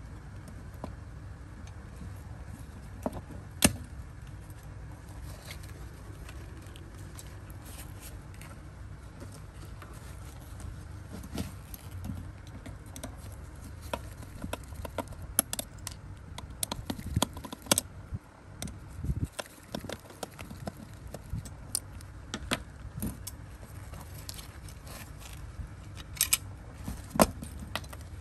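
Irregular light clicks and small metallic clinks from the parts of a toy model car being handled and worked on, over a steady low hum. The clicks come thickest about halfway through and again near the end.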